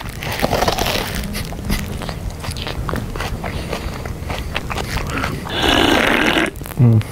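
A person eating loudly on purpose: crunching bites and chewing with many sharp crackles, a louder noisy burst about six seconds in, and a short low vocal sound near the end.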